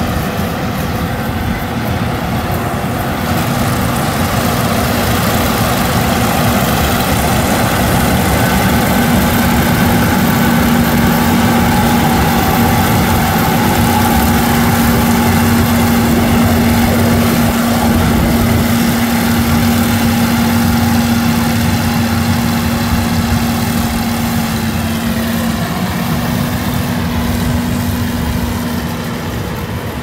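Kukje KC100 six-row rice combine harvester running while cutting and threshing rice: a steady engine drone with a constant hum over the rush of the threshing machinery. It grows a little fainter near the end as the machine moves away.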